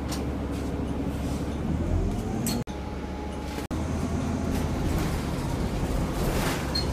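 Steady low rumble of road traffic and engines. About two seconds in a tone rises, like an engine speeding up. Two very brief dropouts come near the middle, and the later part is the running noise inside a moving bus.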